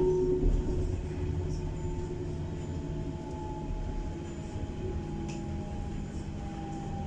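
Berlin S-Bahn electric train running, heard from inside the carriage: a steady low rumble with a thin motor whine that slowly falls in pitch.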